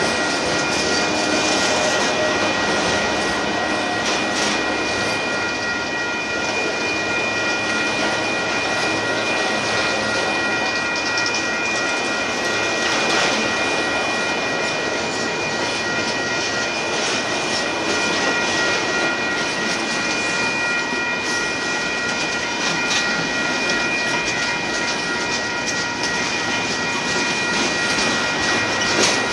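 Union Pacific freight train of auto-rack cars and boxcars rolling steadily past at a grade crossing: a continuous rolling rumble with occasional clicks. Three steady high-pitched tones sound over it throughout.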